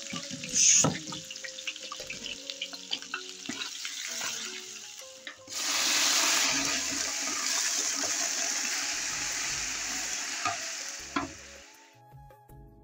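Sliced onions frying in oil in a large aluminium pot, sizzling with small clicks and scrapes of metal utensils against the pot. About halfway through, water is poured onto the browned onions, a sudden loud rushing hiss that runs for about six seconds and cuts off abruptly near the end.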